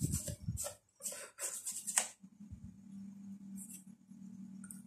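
Small brush scratching across a dirty laptop motherboard in a quick run of short strokes, scrubbing it clean. From about two seconds in, a steady low hum sets in.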